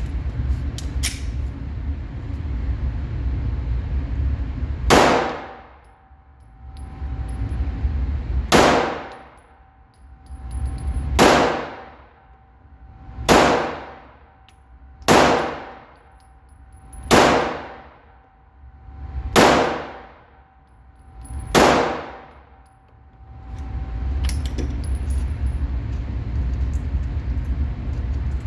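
Eight pistol shots from a Glock 48 9mm, spaced about two seconds apart, each sharp crack followed by a ringing echo in an indoor range. A steady low hum runs before the first shot and after the last.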